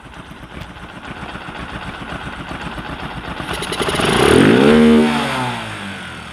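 Bajaj Discover 125's single-cylinder four-stroke engine idling, revved once about halfway through (pitch rising then falling back) before returning to idle. The valve clearances have just been reset to cure a tappet ticking noise.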